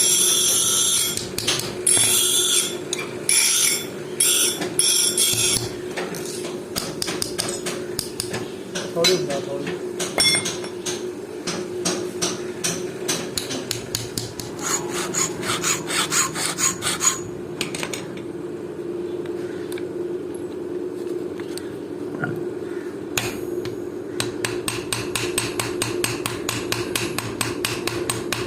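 Hand hammer striking steel on an anvil while a file blank is forged into a knife, in quick runs of several blows a second with a quieter pause past the middle. A few longer scraping strokes come in the first five seconds, and a steady low hum runs underneath.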